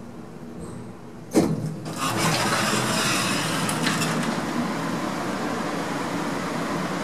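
A sharp knock about a second and a half in, then a louder, steady mechanical rumble.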